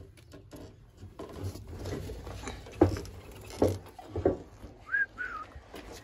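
Rustling and several knocks and clunks as someone moves through into an aviary, with a short bird chirp near the end.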